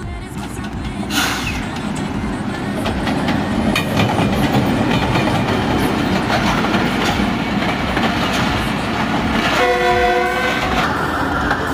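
Passenger train running past, loud and close, its wheels clattering over the rail joints, the rumble building over the first few seconds as it approaches. About ten seconds in, the train's horn sounds once for about a second.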